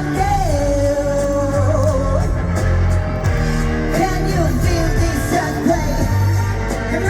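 Live pop-rock song: a male singer holds a long note and then sings on over a band with a steady bass and drum beat.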